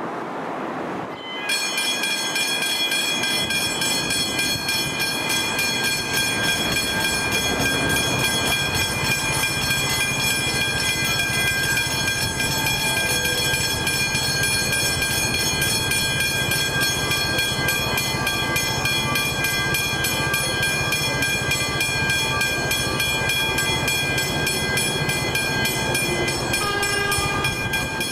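Railway level-crossing warning bells start abruptly about a second and a half in and keep ringing in a fast, even, clanging repeat.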